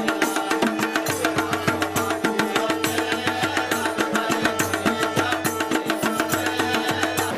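Indian folk dance music: fast, even drumbeats over steady held tones.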